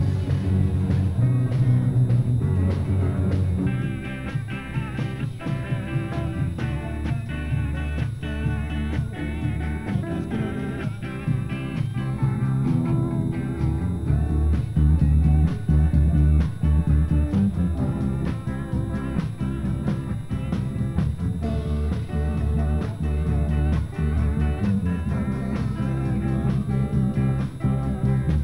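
Rock band playing live: drum kit and bass keep a steady beat, and a guitar melody comes in about four seconds in.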